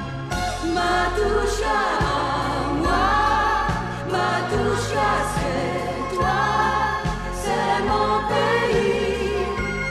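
Music: a 1985 French pop song, with several voices singing together in a choir-like passage over a stepping bass line and a backing band.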